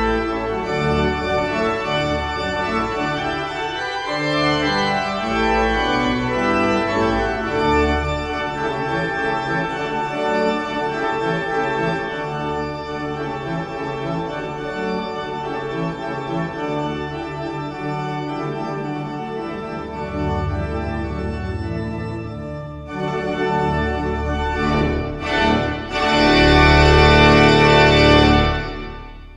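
Organ playing slow, sustained chords, rising to a loud final chord held for about two seconds before it dies away.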